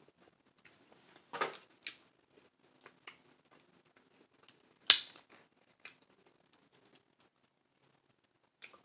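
Cooked lobster claw shell being cracked and picked apart by hand, with scattered small clicks and crackles and one sharp crack about five seconds in.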